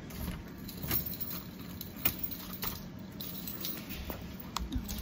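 A bunch of keys jangling and clicking as a door is locked with a key, with a few sharp separate clicks from the key and lock.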